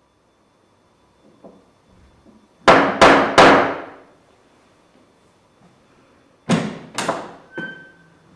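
Loud knocks on a heavy wooden door: three in quick succession, then two more a few seconds later, each ringing out in the room. A brief high tone sounds near the end.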